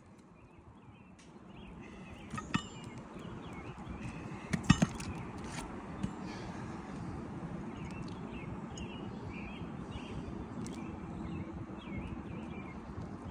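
A few sharp knocks and taps from work on a 3-tab asphalt shingle roof. The loudest is a quick double knock about five seconds in. Underneath is a steady outdoor background with small bird chirps.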